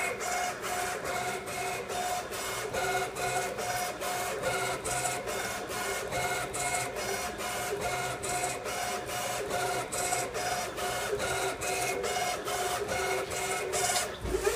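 Aerotech 1135 DC servo motors on a CNC mill whining through a run of rapid traverse moves. It comes as a quick string of short moves, about three a second, with brief stops between them, and stops about 14 seconds in.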